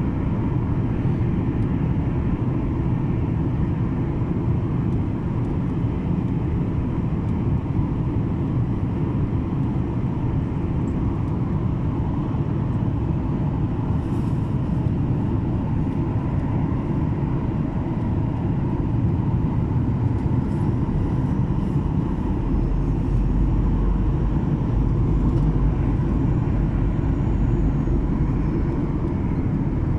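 Steady airliner cabin drone in flight: engine and airflow noise, heaviest in the low end with a faint steady hum. A deeper low rumble swells in the last third.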